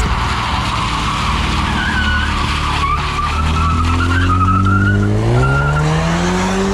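A Ford Mustang pulling away hard: the tyres squeal in short wavering chirps while the engine note climbs steadily as the car accelerates.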